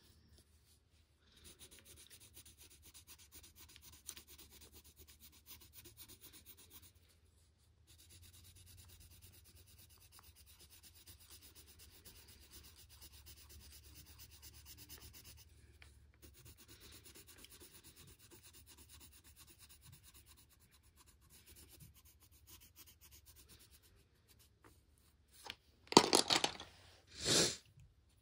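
Colored pencil shading a coloring-book page: faint, steady scratchy rubbing of the pencil lead on paper, pausing briefly a couple of times. Near the end, two short, louder noises.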